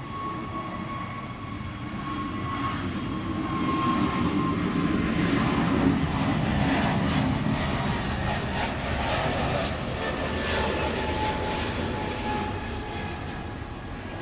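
Jet airliner taking off, its engines at take-off power swelling to a peak about six seconds in as it passes, then fading. A thin whine over the roar drops in pitch as the aircraft goes by.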